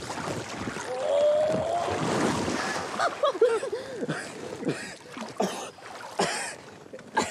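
A man and a coracle tipping into a mill pond: a big splash with a rising shout in the first few seconds, then more splashing and short cries as he struggles in the water.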